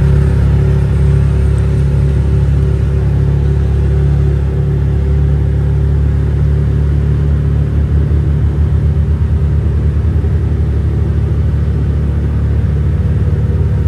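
Off-road vehicle engine running steadily under way, a loud continuous low rumble.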